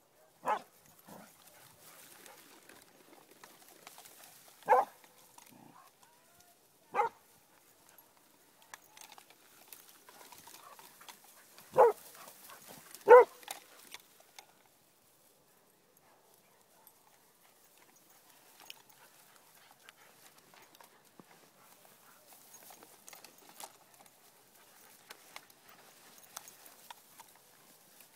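A dog barking five times: short single barks spread out, the last two close together about twelve and thirteen seconds in.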